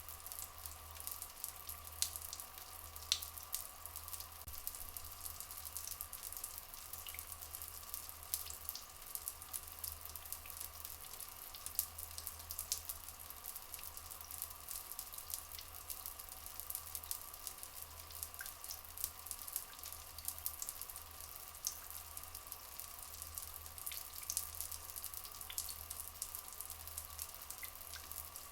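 Steady flowing water with a dense, fine patter and crackle, and a faint steady hum-like tone in the middle range, unchanging throughout.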